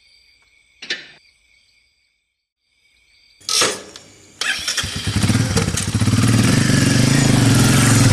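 A brief knock about a second in, then a motorcycle engine starting about three and a half seconds in and running with a steady low beat, growing louder over the next second or two.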